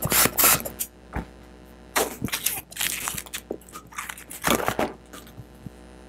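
Hand balloon pump pushing air into a red 260 twisting balloon with quick strokes, about three a second, which stop about a second in. Then a few brief rubbery rustles as the inflated balloon is taken off the pump and handled.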